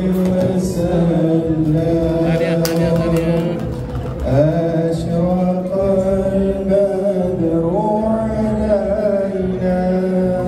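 A man singing through a microphone and loudspeaker, in long held notes that slide from one pitch to the next, in a chant-like style.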